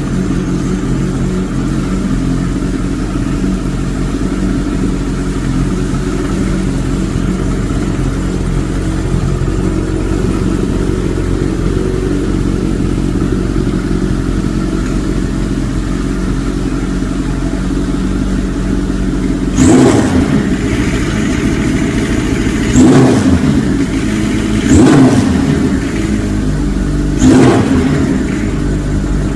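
Kawasaki KZ1000's air-cooled four-cylinder engine idling steadily, then blipped with the throttle four times near the end, each rev rising sharply and dropping straight back to idle.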